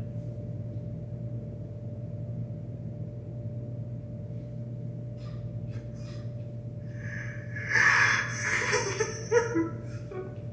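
Steady low hum of room tone, then about seven seconds in a man breathing hard and shakily into his hands, the start of sobbing.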